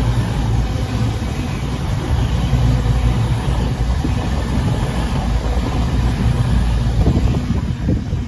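Class 220 Voyager diesel-electric trains, two units coupled, passing at low speed. Their underfloor Cummins diesel engines give a steady low rumble that starts to fade near the end as the last carriage draws away.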